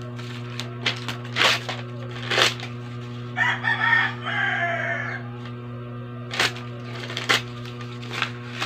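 A rooster crows once, about three and a half seconds in, over short crackling and rustling as pale green sheets are torn and handled. A steady low hum runs underneath.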